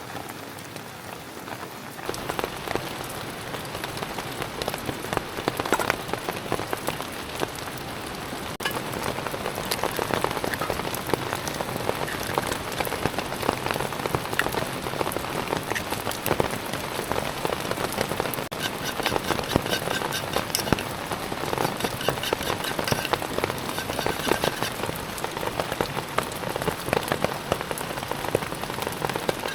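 Steady rain with a dense, irregular pattering of drops hitting a surface, growing louder about two seconds in.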